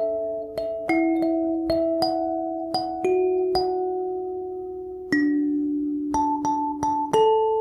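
Background kalimba music: a slow melody of plucked notes, each ringing on and slowly fading, some held for several seconds.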